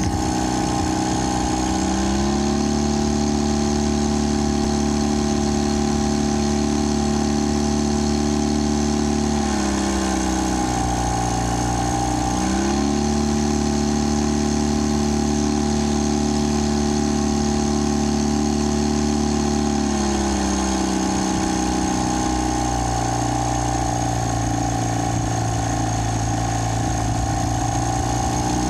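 Mercury 15 hp outboard motor running hard under load, a steady mechanical drone. Its pitch sags about ten seconds in, climbs back a few seconds later, sags again around twenty seconds and picks up near the end.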